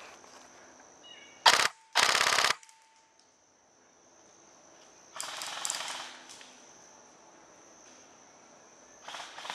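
Airsoft gun firing: one sharp shot about a second and a half in, then a short full-auto burst of rapid shots lasting about half a second. A softer rustle follows about five seconds in.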